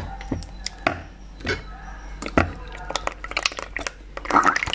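Spoon stirring and scraping through thick coconut cream and mashed purple sweet potato in a plastic bowl: scattered soft clicks and knocks, coming faster near the end.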